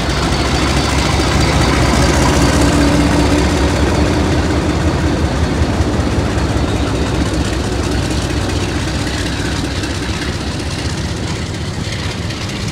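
Diesel locomotive engine running heavily as it passes close by, loudest a couple of seconds in and easing off toward the end, with the rumble of the train rolling along the track.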